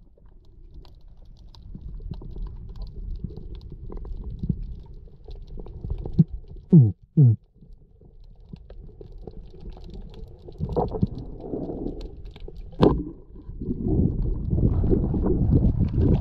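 Underwater, a diver grunts twice through his mouthpiece to call fish, two short groans falling in pitch about seven seconds in, over a steady low water rumble. A sharp click comes near the end, followed by louder rushing water.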